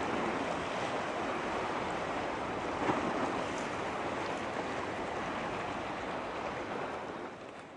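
Steady rushing of wind and choppy sea water, with no engine tone, fading out near the end.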